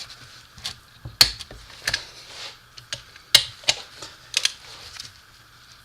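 Irregular sharp metallic clicks and clinks, about a dozen, the loudest about a second in and about three seconds in: hand tools and parts knocking together during reassembly of a New Process 247 transfer case housing.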